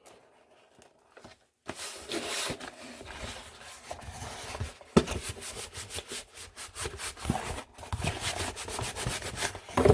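Packing tape being rubbed down onto a cardboard shipping box, a rubbing and scraping sound with small crackles, starting about a second and a half in, with one sharp knock about five seconds in.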